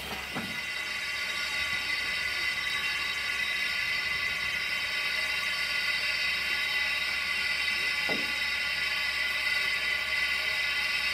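Steam hissing steadily from the narrow-gauge saddle-tank steam locomotive Melior as it stands in steam. The hiss builds over the first second or two, then holds level.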